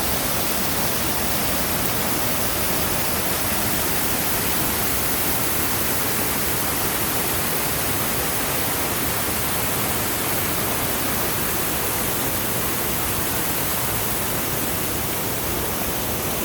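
Waterfall: falling water rushing, a steady, even noise without breaks.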